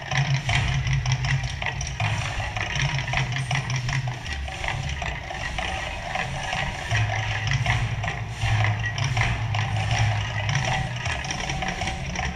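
Mirage volcano show eruption: a deep, steady rumble that drops lower about halfway through, with rapid crackling and rattling over it.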